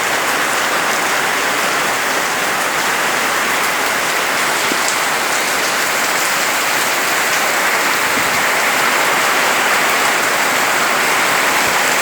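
Heavy rain falling hard and steadily, a dense even hiss of rain on surfaces.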